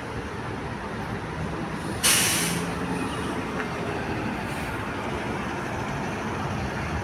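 Bus engine running steadily, with a sudden short burst of air brake hiss about two seconds in.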